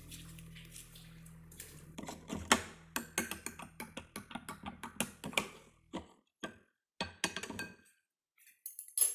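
A spoon clinking against a drinking glass while a drink is stirred: quick, irregular ticks for several seconds, thinning out, with one louder clink near the end.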